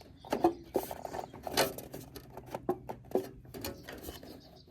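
Irregular clicks, knocks and short scrapes of rain-gutter parts being handled and fitted together by hand.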